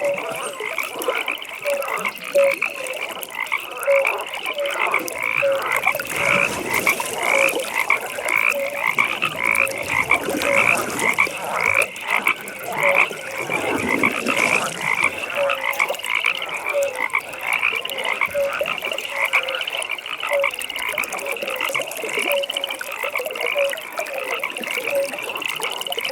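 A chorus of frogs calling at a pond, with many short croaks overlapping and repeating a few times a second. A lower-pitched call repeats about once a second beneath them.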